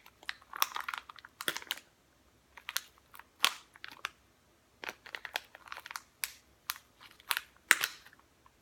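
Small mix packet crinkling and crackling as it is worked at by hand to tear it open, in irregular crackles with short pauses.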